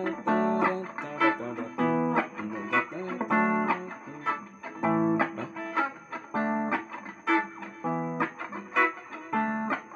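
Electric guitar played alone: chords struck in a repeating rhythmic groove, about two to three strokes a second.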